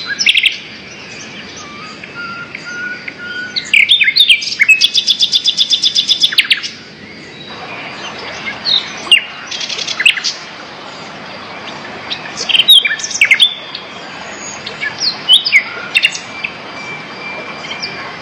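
Wild birds chirping and calling, with a fast, evenly repeated trill lasting about three seconds starting about four seconds in, over the steady rush of the waterfall's flowing water.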